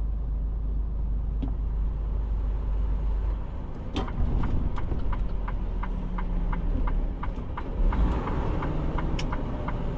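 Semi truck's diesel engine running, a steady low rumble. From about four seconds in, a regular ticking about three times a second joins it.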